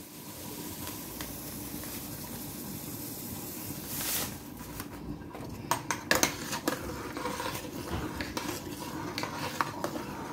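Metal spatula stirring a pot of boiling starchy mixture in a stainless steel pot, over a steady hiss. From about four seconds in, the utensil knocks and scrapes against the pot's sides and bottom in a run of sharp clicks.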